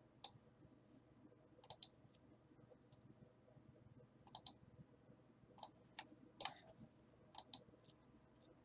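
Faint computer mouse clicks, single and in quick pairs, about ten spread over several seconds, against near silence.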